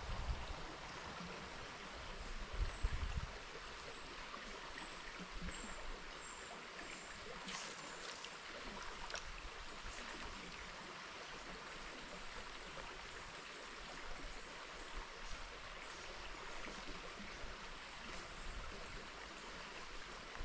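Steady rush of flowing river water, with a few low thumps in the first three seconds.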